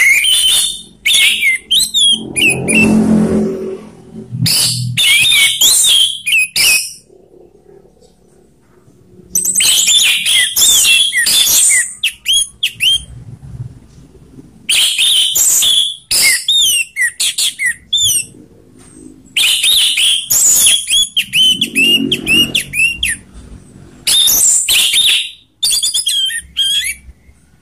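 Orange-headed thrush (anis merah) singing its loud ngeplong song: bursts of rapid, varied whistled phrases a second to three seconds long, about seven in all, with pauses of a few seconds between.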